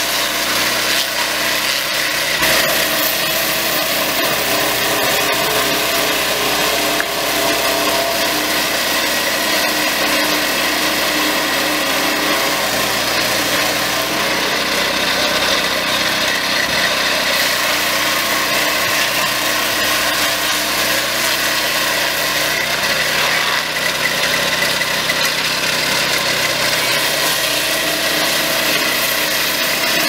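Turbo swing-blade portable sawmill running steadily, its small engine driving the circular blade as it saws along a log.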